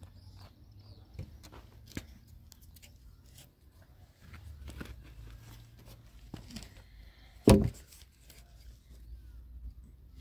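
Scattered light clicks and knocks over a low rumble, with one loud thump about seven and a half seconds in.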